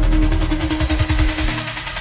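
Bass-boosted phonk music: heavy distorted sub-bass under a held synth note, with the bass pulsing and then dropping out about a second and a half in, leaving a harsh noisy texture.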